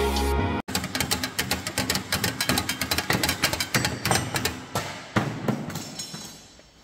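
Intro music cuts off under a second in, followed by a rapid, irregular run of sharp hammer blows on sheet metal with some ringing, thinning out and fading near the end.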